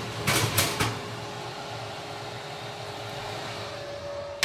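Cast iron pan scraping and clattering onto a wire oven rack, followed by a fan oven's fan running with a steady hum, and the oven door shutting with a thump at the end.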